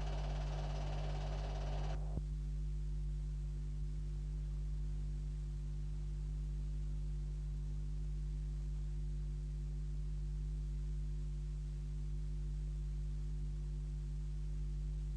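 Steady low electrical mains hum with its overtones, unchanging throughout. A fainter hiss above it cuts off about two seconds in.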